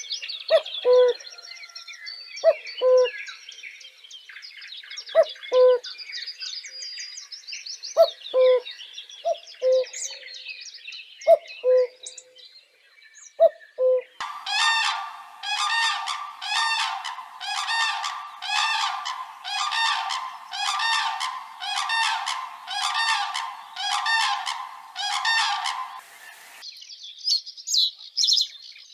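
Wild birds calling. First comes a chorus of high chirping, with a low two-note call repeated every couple of seconds. About halfway through, a loud call takes over, repeated about once a second. It stops abruptly near the end, and the high chirping returns.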